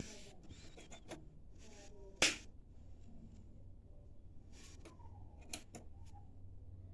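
Sharp switch clicks as a 100-watt amplifier is switched on, the loudest about two seconds in and a few smaller ones later, over a faint low hum.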